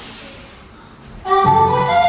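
Orchestral music with a flute-like melody. The music thins to a quiet stretch with a soft high hiss, then comes back in loudly about a second and a half in.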